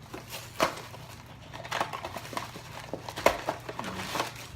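Funko Mystery Minis blind-box packaging being torn open and handled by hand: an irregular run of sharp clicks, tears and crinkly rustles of cardboard and plastic, the loudest snap about three seconds in.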